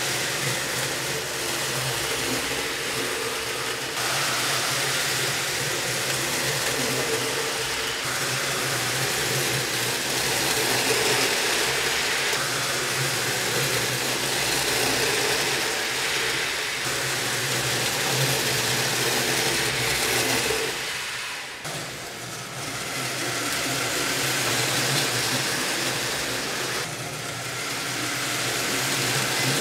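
HO-scale slot car trucks running laps on plastic slot car track: a steady small-electric-motor hum mixed with the noise of the trucks running along the track. It dips briefly about two-thirds of the way through.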